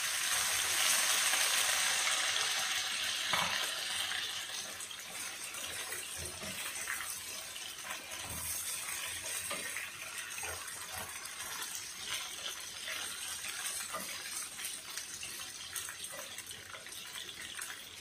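Chicken drumsticks sizzling in a hot granite-coated pan with onions: loudest in the first few seconds after they go in, then a steady sizzle with scattered clinks and knocks from the tongs turning them.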